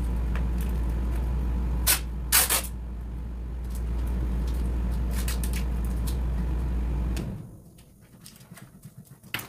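Air conditioner running with a steady low hum, with a few sharp clicks and knocks; the hum stops about seven seconds in, leaving only faint small clicks.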